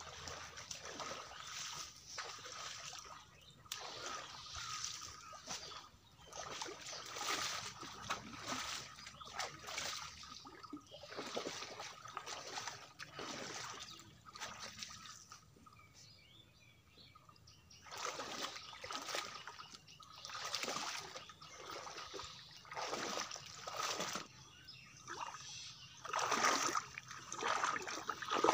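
Water splashing and sloshing in irregular bursts as a person wades and works with their hands in a shallow, weedy pond, with a quieter lull about halfway through.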